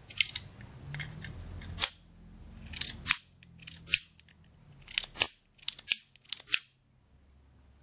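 Small parts of a KWA ATP airsoft pistol's slide assembly clicking as they are fitted together and handled: a series of sharp clicks at uneven intervals.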